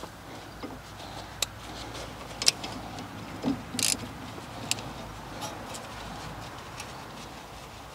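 A few scattered metallic clicks and clinks of a socket and wrench being handled at a car's front brake caliper, with a short rustle about four seconds in, over a steady low background hum.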